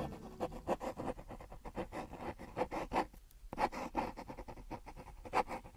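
Faint, irregular short scrapes and rubs, a few each second, with a brief lull about three seconds in.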